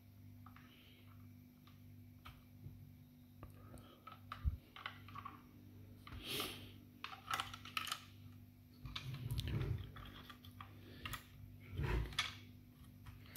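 Plastic clicks, taps and handling noises at irregular intervals as small parts of a Nerf Rival Roundhouse blaster are fitted back into its plastic shell, over a faint steady hum.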